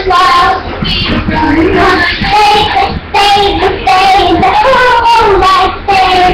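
A child singing unaccompanied, holding long notes and sliding between pitches.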